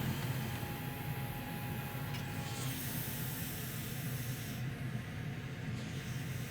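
Steady hiss of air from a hot-air rework station blowing over a low hum while a new MOSFET is being soldered to the board. The higher part of the hiss brightens about three seconds in and fades a couple of seconds later.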